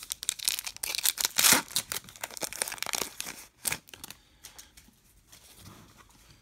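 Foil wrapper of a Topps trading-card pack being torn open and crinkled by hand, with a dense crackle of sharp crinkles that is loudest about a second and a half in. The crinkling dies down about four seconds in.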